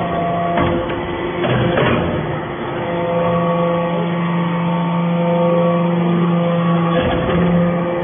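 Hydraulic briquetting press for aluminium chips running: a steady motor-and-pump hum with several tones, growing stronger about three seconds in. A few short knocks come near the start and again about seven seconds in.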